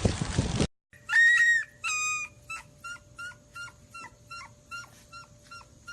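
A loud noise cuts off abruptly under a second in. Then a dog howls two longer notes, followed by a run of short high yelps, about three a second, growing fainter.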